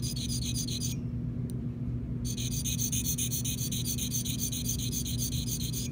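Flat sharpening stone rubbed against the cutting edge of a Gracey 17-18 curette in quick, even strokes. It makes a rhythmic, high-pitched scraping that pauses for about a second, about a second in, and runs over a low steady hum.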